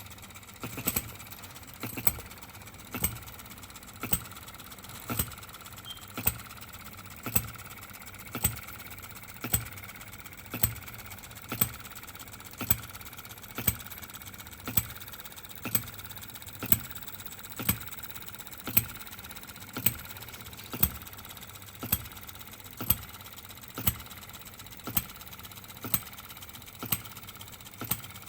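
Scale model of a 1910 Monitor ball-top hit-and-miss engine running, with a sharp double knock repeating evenly about once a second over a faint steady mechanical clatter.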